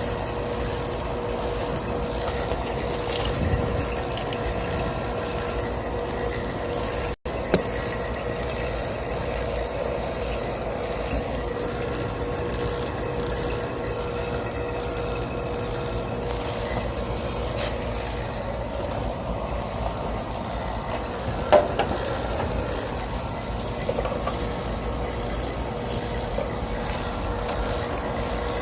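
Refrigeration vacuum pump running steadily while evacuating an air-conditioning system, a constant drone with a steady mid-pitched hum. The sound drops out for an instant about seven seconds in.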